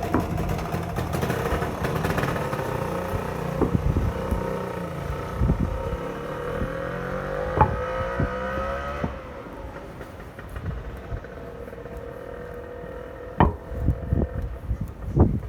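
A motor vehicle passing close by, its engine or motor whine rising in pitch, then dropping away sharply about nine seconds in. Quieter traffic follows, with a couple of sharp clicks later on.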